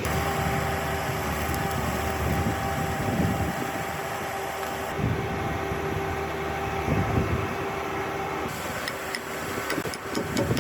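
A machine running with a steady hum under a noisy rush, with a series of sharp clicks or taps near the end.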